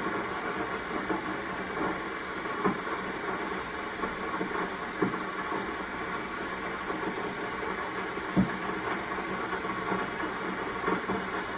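Film projector running: a steady mechanical whir and hum, with a few sharp clicks at uneven intervals. The film's optical soundtrack is not being played, so only the machine is heard.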